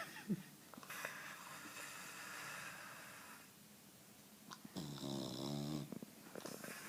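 English bulldog snoring while asleep on his back with his mouth open. A long breathy snore is followed by a quieter pause, then a louder, pitched snore about five seconds in, with the next breath starting near the end.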